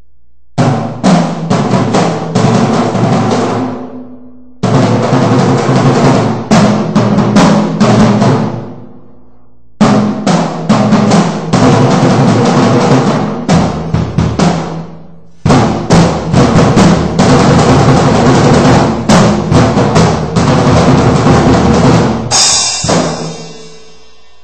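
Acoustic drum kit being played loosely for a sound check: four runs of quick hits and fills with short pauses between them. A louder crash near the end rings out and fades away.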